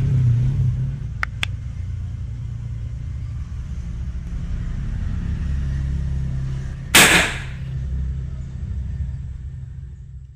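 Small PVC-pipe methylated-spirit cannon firing once about seven seconds in, a short sharp blast, over a steady low rumble. Two faint clicks come about a second in.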